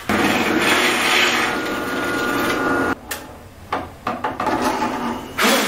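Benchtop drill press running with its bit boring into plywood, a loud grinding noise with a steady hum that cuts off about three seconds in. Then come a few lighter knocks and one short, louder scrape near the end as the board is handled.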